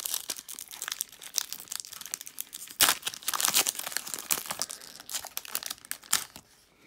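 Foil wrapper of a 1998-99 Topps Chrome basketball card pack being torn open and crinkled by hand, a dense crackling with the loudest crunches about three seconds in, fading near the end as the cards come out.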